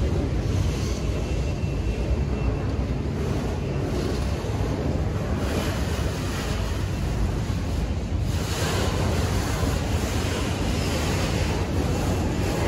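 Freight train of autorack cars rolling past close by: a steady rumble of steel wheels on rail, with wind buffeting the microphone.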